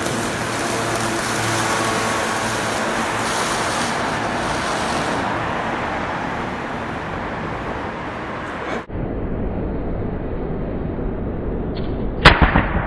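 Ground fountain firework hissing steadily as it sprays sparks. About nine seconds in the sound cuts abruptly to a duller, lower noise, and a single sharp firework bang comes near the end.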